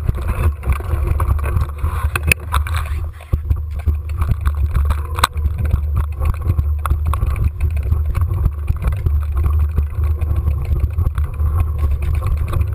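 Mountain bike ride picked up by a bike- or rider-mounted camera: a steady low rumble with scattered clicks and knocks from the bike rattling over rough singletrack, dipping briefly about three seconds in.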